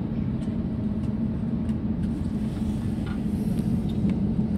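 Steady low cabin rumble of an Airbus A350-900 taxiing, with a few faint scattered ticks.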